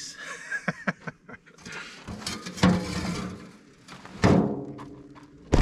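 Knocks and shuffling as parts are stowed in a car's footwell, two short vocal sounds, and a car door shut with a thud near the end.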